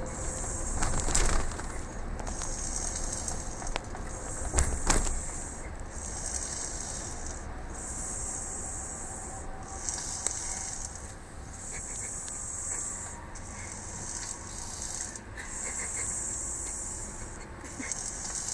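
Baby snoring: a hissing breath that comes back regularly, about every one and a half to two seconds. Two louder bumps come about one second and five seconds in.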